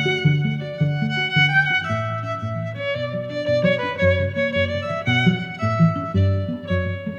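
Background music: a violin-like melody in held notes over a steady plucked low accompaniment.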